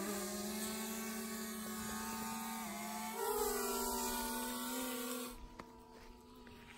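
Quadcopter drone's propellers humming: the pitch rises as they spin up at the start, shifts with throttle about three seconds in, and the hum drops away about five and a half seconds in as the drone moves off.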